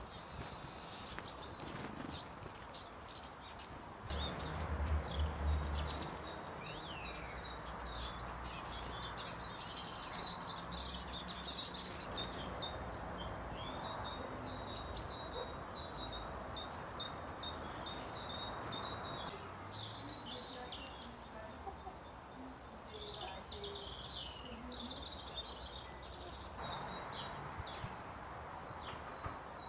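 Small garden birds singing and calling: many short chirps and twitters, with a run of quickly repeated notes in the middle, over a steady outdoor background. A low rumble for about two seconds, about four seconds in, is the loudest part.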